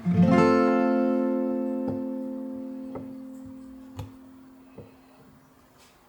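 Background music: an acoustic guitar strums one final chord that rings out and slowly fades away, with a few faint clicks as it dies.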